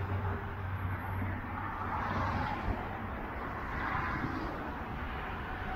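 Steady rushing noise of passing vehicles, swelling about two seconds in and again about four seconds in.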